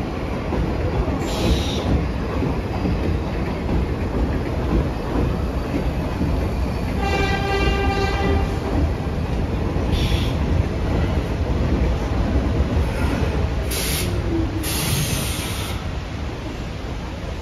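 Vintage New York City subway train running on the rails with a steady, loud rumble. About seven seconds in a single horn blast sounds for just under two seconds, and a few short bursts of hiss come later.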